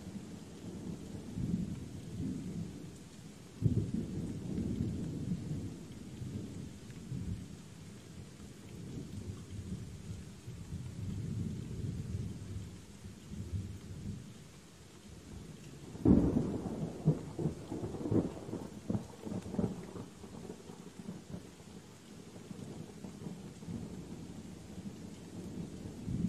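Thunderstorm with rolling thunder over steady rain. Low rumbles swell and fade throughout, with a sharper clap about four seconds in. The loudest crack comes about sixteen seconds in and crackles and rumbles on for several seconds.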